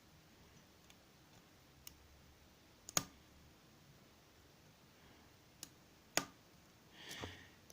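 Sparse metallic clicks of a lock pick and tension wrench working the pin stack of a 75mm shutter padlock, the loudest about three seconds in and about six seconds in, with a short scrape near the end.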